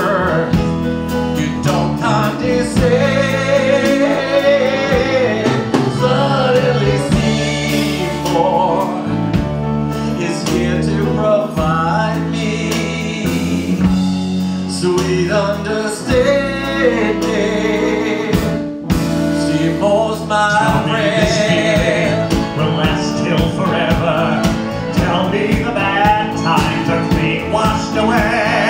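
Male vocals singing a Broadway show-tune duet over a live band of drums, bass, keyboard, electric guitar and violin. A steadier, driving beat takes over about two-thirds of the way through.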